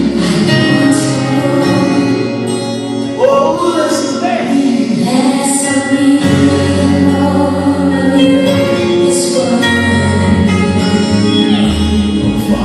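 Gospel music with a choir singing over a band.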